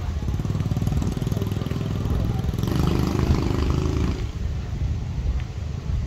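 A motor vehicle engine running on the road alongside, with a motorcycle-like low rumble that eases off about four seconds in.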